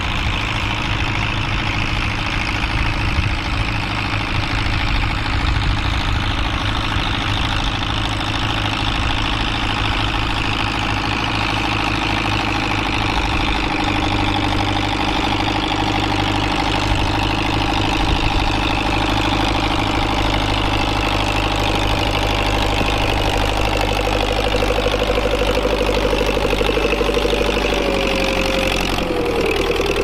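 Fiat tractor's diesel engine running steadily as the tractor drives across the field, with a higher tone that rises and then drops near the end.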